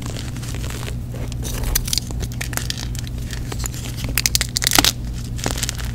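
Gym chalk blocks being crushed and crumbled by hand into a heap of powder and broken pieces: a run of crisp crackling crunches, thickest and loudest about four to five seconds in, over a steady low hum.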